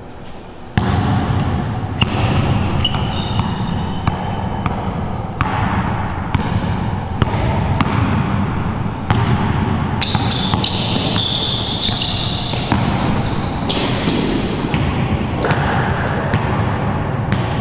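Basketball dribbled on a hard court floor, bounce after bounce, starting about a second in. Sneakers squeak on the floor now and then, most around the middle.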